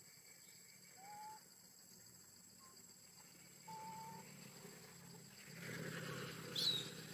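Faint animal calls: a short rising whistled note about a second in, a steady one near four seconds, and a sharp high squeak near the end.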